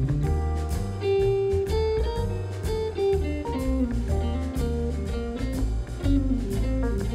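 Background music: a guitar-led instrumental track with plucked, strummed notes over a steady bass line.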